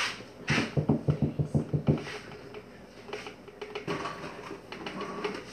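A scoop scraping and tapping inside a nearly empty container of powdered drink mix: a quick run of about ten small taps in the first two seconds, then a few fainter scrapes and clicks.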